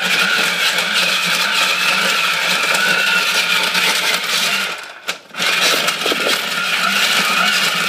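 Electric snow cone maker shaving ice: a steady motor hum under the rough grinding rasp of ice being shaved, cutting out briefly about five seconds in and then starting again.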